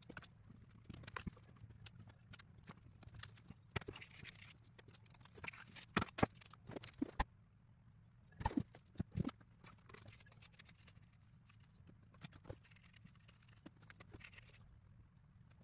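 Small laser-cut plywood kit parts being handled on paper sheets on a wooden table: scattered light clicks and taps with some paper rustle, over a low steady hum.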